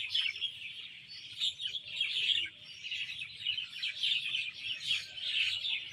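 Many small songbirds chirping and singing at once, a dense, continuous chorus of overlapping high chirps.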